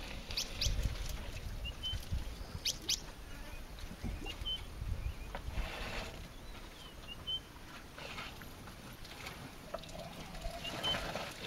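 A small bird chirping briefly, four times at about three-second intervals, over a low rumble and scattered faint rustling.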